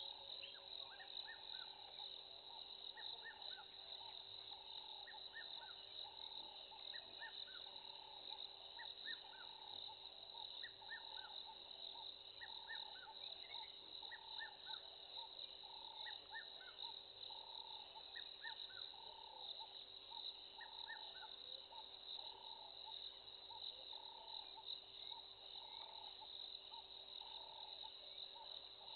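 Steady, shrill chorus of crickets and other insects, with a lower call repeating steadily and small groups of short falling chirps every second or two.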